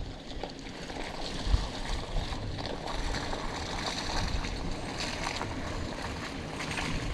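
A 4x4 vehicle crawling slowly over a rocky off-road trail: steady engine and tyre noise, with a single thump about one and a half seconds in.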